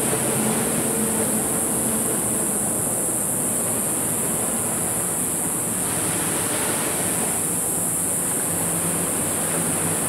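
Waves of the Genkai Sea washing on the shore, a steady rush of surf with one wave surging louder about six seconds in.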